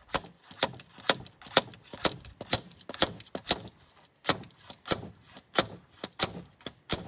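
A beater block striking the end of a long bolt over and over, about two sharp metallic knocks a second with a brief pause midway, to drive a broken plastic hinge insert out of an aluminium awning arm.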